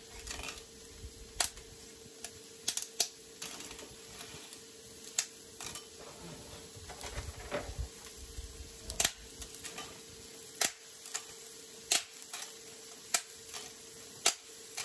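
Dry lasagna noodles snapping as they are broken into pieces by hand: sharp, irregular snaps, roughly one a second.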